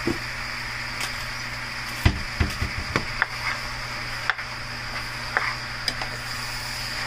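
Ground beef beginning to sizzle in a frying pan while a plastic slotted spoon stirs and breaks it up, with a cluster of knocks of the spoon against the pan about two to three seconds in. A steady low hum runs underneath.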